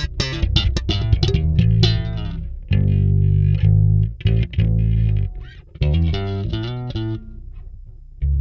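Five-string neck-through electric bass played solo through a Kemper Profiler amp modeller. A fast run of plucked notes gives way a little under three seconds in to a few held low notes, followed by another quick run that dies away before a new note near the end.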